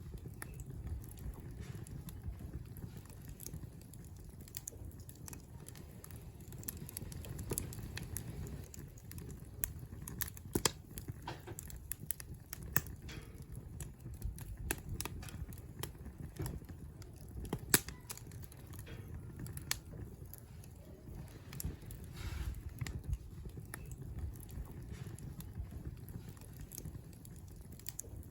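Wood campfire burning: scattered crackles and sharp pops over a low, steady rumble, with the loudest pops about ten and eighteen seconds in.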